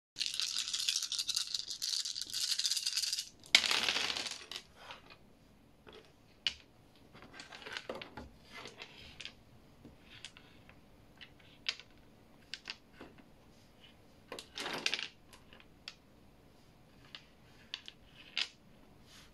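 A handful of small plastic game dice shaken together in cupped hands for about three seconds, then thrown down in one loud clatter. Scattered single clicks follow as the dice and plastic game pieces are picked up and set down, with a second short clatter about two-thirds of the way through.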